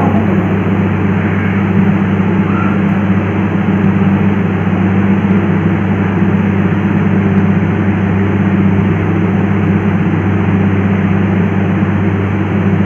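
A heavy engine or machine running steadily: a loud, even drone with a strong low hum that does not change in pitch.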